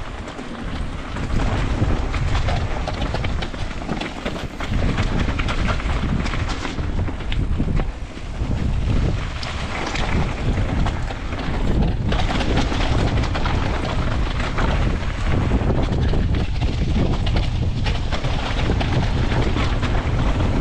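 Wind buffeting the microphone of a riding mountain biker's camera, with the clatter and rattle of the bike running over a rocky slate trail.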